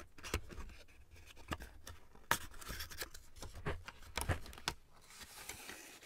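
A cardboard cologne box being opened by hand: a string of sharp clicks and scrapes as the end flap is pried open, then a softer sliding rustle near the end as the inner box is drawn out of the sleeve.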